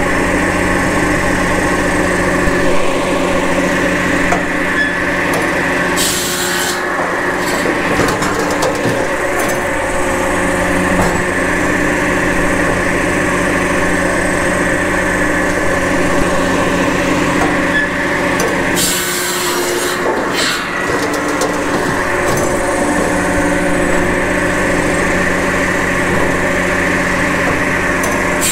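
Japa 700 firewood processor running steadily, driven through its PTO shaft, as a log is fed along the infeed. Its 700 mm belt-driven circular saw blade cuts through sycamore twice in short harsh bursts, about six seconds in and again near twenty seconds.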